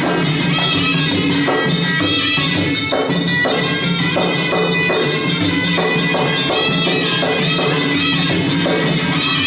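Traditional Kun Khmer ringside fight music: a reedy wind melody over steady drum beats and small cymbals.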